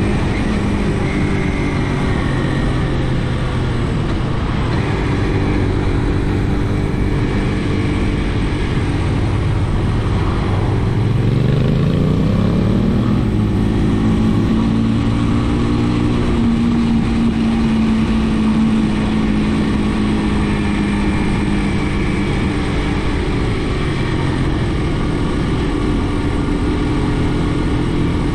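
Brixton BX5 motorcycle engine running under way over a steady rush of wind and road noise. About ten seconds in, the revs climb smoothly for a few seconds under acceleration, then settle into a steady cruise.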